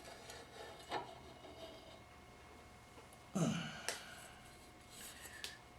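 A few light clicks of transmission parts being handled, and a short breathy vocal sound falling in pitch about three and a half seconds in.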